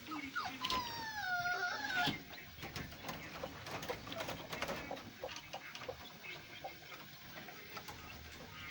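Hen with newly hatched chicks: one long wavering call about a second in, then scattered short peeps and clucks.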